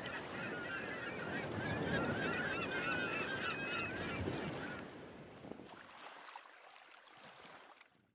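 Shore ambience: a flock of birds calling over small waves washing against rocks. The calls stop about five seconds in, and the wash fades out to silence near the end.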